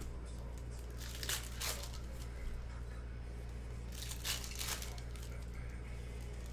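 Foil trading-card pack wrappers crinkling and tearing as packs are ripped open, in two short bursts over a steady low hum.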